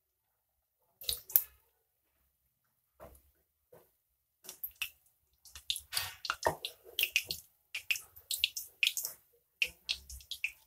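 Methi bhajiya batter frying in hot oil in a kadhai: sputtering crackles and pops, a few scattered ones at first, then coming thick and fast from about four seconds in.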